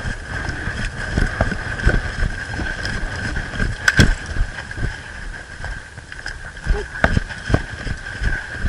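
Footsteps and gear rustling as a player moves across the field, with wind buffeting the microphone, a steady faint high whine and a few sharp clicks, one about four seconds in and another about seven seconds in.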